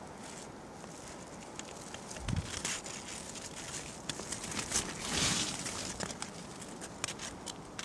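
Faint rustling with many small scattered clicks, a low thump about two seconds in and a brief louder rustle about five seconds in.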